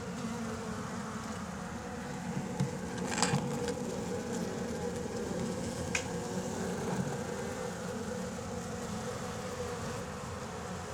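A mass of honeybees buzzing in a steady drone, with a couple of light clicks about three and six seconds in.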